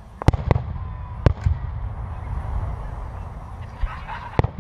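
Aerial fireworks shells bursting: two sharp bangs close together at the start, another about a second in, and one near the end, over a low rumble.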